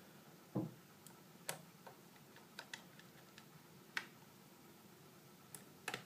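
Faint, irregular clicks and light taps of small plastic and metal parts being handled: the drive's cable connector and the SSD being seated inside an open MacBook Pro with fingers and a red-handled tool.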